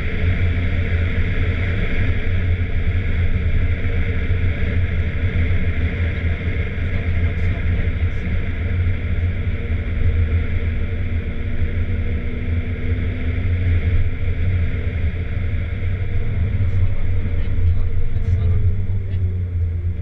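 Porsche 996 Turbo's twin-turbo flat-six and road noise heard from inside the cabin while lapping a racetrack: a steady low rumble throughout, with a faint change in engine pitch in the second half.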